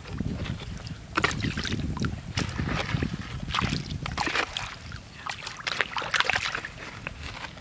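Shallow water splashing and sloshing in irregular strokes as a large fish thrashes in a few centimetres of flowing water and a plastic basket is pushed down over it, over a low rumble that fades after about five seconds.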